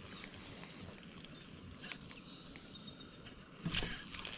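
Faint outdoor ambience on calm water, with a few light ticks and a soft knock near the end.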